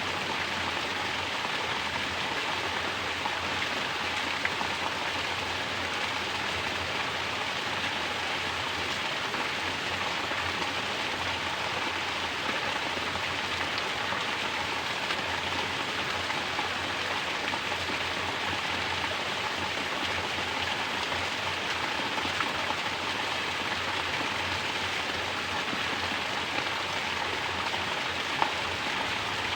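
Mountain spring water falling steadily as a natural shower, splashing evenly onto the surface below, with a few sharper drip-like ticks.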